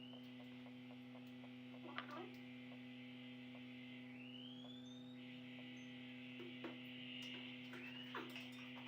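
Steady low electrical mains hum, with a few faint clicks and taps near two seconds in and again near the end.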